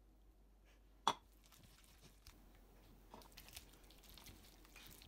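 A single sharp clink about a second in, then a silicone spatula squishing and scraping through thick churro dough in a non-stick frying pan as beaten egg is worked in.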